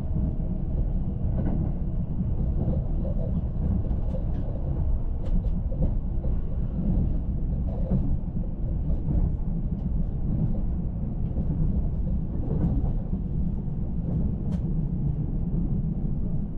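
Azusa limited express train running: a steady low rumble with faint clicks scattered through it.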